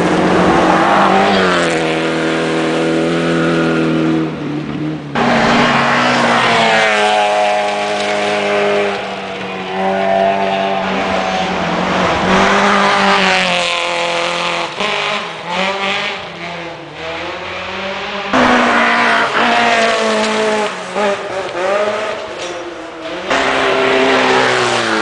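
Rally cars at full throttle on a gravel stage, engines revving up and falling back again and again through gear changes as they pass. The sound changes abruptly about five seconds in and again about eighteen seconds in, as one pass gives way to another.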